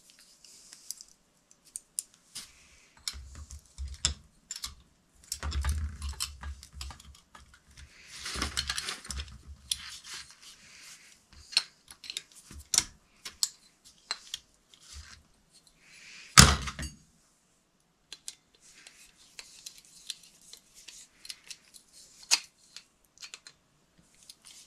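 Scattered small clicks, taps and rustling of wires and a screwdriver worked on a porcelain light fixture as the hot wire is fastened under its terminal screw, with some dull bumps in the first half and one sharp knock about sixteen seconds in.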